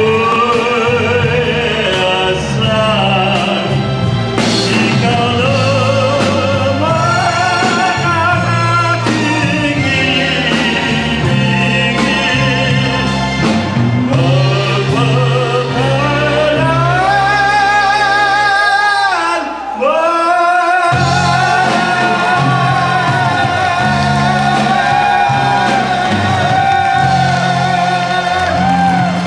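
A man sings a Tagalog love ballad into a microphone with a live band, including keyboard, backing him. His voice carries a wide vibrato and holds long notes, with a short break in the music about two-thirds through before the final held note.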